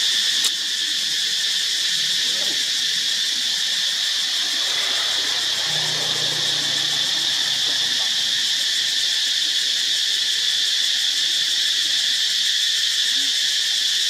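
Steady, loud, high-pitched drone of an insect chorus that holds unchanged throughout.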